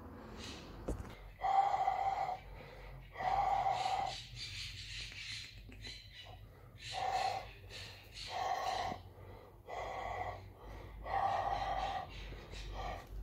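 A man's long, breathy exhalations, about seven of them with short pauses between, blown onto a wet house sparrow held against his chest to warm and dry it.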